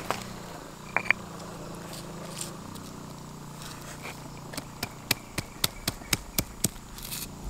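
Stone pestle knocking and crushing chilies and garlic with salt in a stone mortar (Indonesian cobek and ulekan). A couple of knocks come about a second in, then from about halfway a steady pounding of about four strikes a second.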